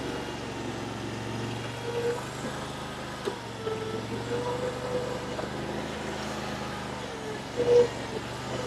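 Mini skid steer's engine running steadily while its hydraulics are checked for leaks, with a wavering higher tone over the low hum and a brief louder swell near the end.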